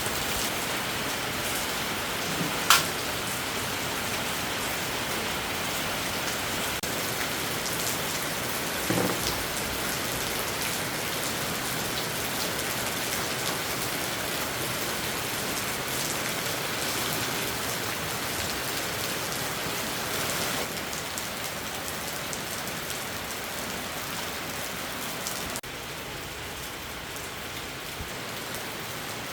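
Heavy rain falling steadily, with a sharp click about three seconds in and a short knock around nine seconds.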